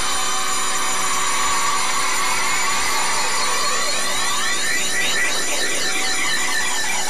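Rock song ending on a long held, distorted chord: a dense, steady drone with a swirling, sweeping effect that builds from about three seconds in.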